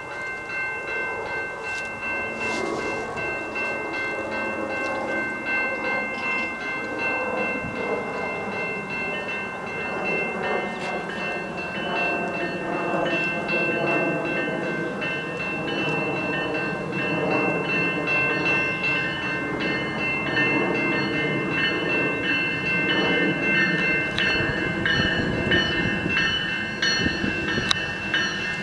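GO Transit commuter train's diesel locomotive approaching and drawing close, its engine sound rising and falling in pitch and growing steadily louder, with a heavy rumble near the end as it comes alongside. A steady high-pitched whine runs underneath.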